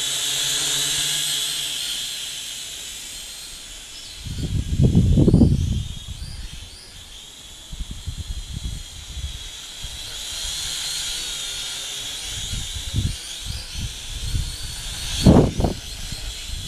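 FQ777 FQ40 brushed-motor mini quadcopter in flight, its propellers giving a steady high whine that wavers as it manoeuvres. Gusts of wind buffet the microphone with a low rumble, loudest about four to six seconds in and again briefly near the end.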